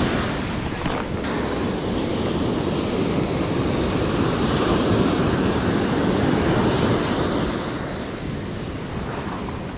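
Ocean surf breaking and washing up the sand close to the microphone, a steady rushing wash that eases off over the last couple of seconds.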